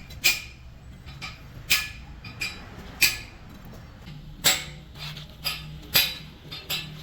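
Hammer striking metal in a regular rhythm, a sharp ringing clink about every second and a half with lighter taps in between, during heavy-truck repair work.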